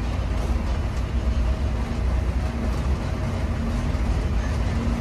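Cabin noise inside a moving coach bus in heavy rain: a steady low engine and road rumble under an even hiss of rain and tyre spray.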